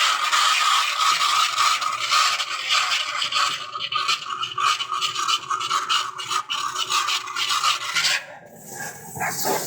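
Rough scraping and scratching, many short strokes in quick succession, easing off about eight seconds in.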